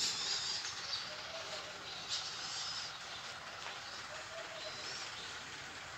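Steady outdoor background noise with a few brief, faint high chirps.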